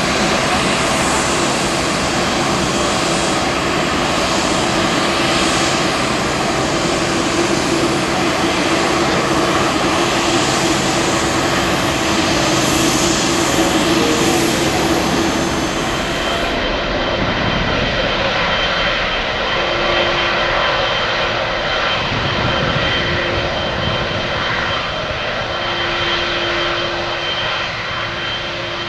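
Jet engines of a taxiing Boeing 747 freighter running at low taxi thrust, a steady roar with a held tone. About 17 seconds in it cuts to the twin engines of a taxiing Boeing 777, another steady roar with a wavering tone.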